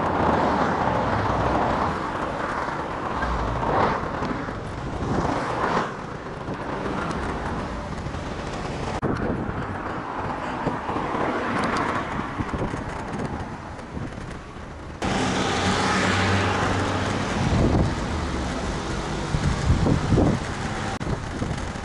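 Road traffic passing on a busy city street, heard from a moving bicycle, with the noise changing abruptly about fifteen seconds in.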